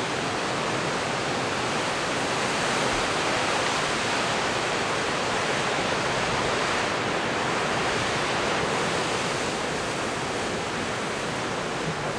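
Heavy ocean surf breaking and churning over rocks and driftwood: a steady rush of white water, swelling a little a few seconds in.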